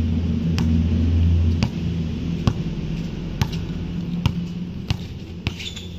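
A small engine running steadily at idle, loud for the first second and a half and then quieter, with sharp knocks repeating about once a second.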